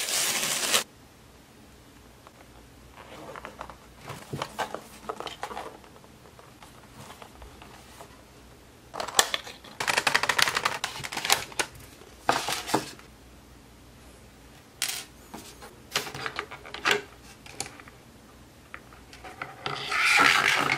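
Model-train packaging being handled: paper wrapping tearing for about the first second, then a cardboard box rustling and scraping as its flaps are opened, with scattered small clicks. The handling is busiest about halfway through and again near the end.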